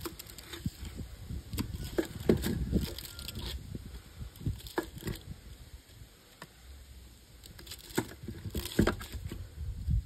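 Irregular clinks and knocks from handling a washing machine motor's stator as its cut copper windings are worked loose, clustered in the first few seconds, quieter in the middle, with a few more knocks near the end.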